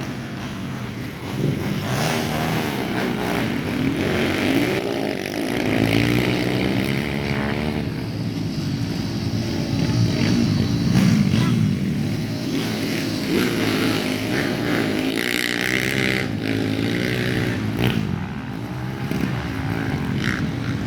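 Dirt bike engines revving hard, their pitch climbing and dropping over and over as they accelerate and shift, with more than one bike heard at once at times.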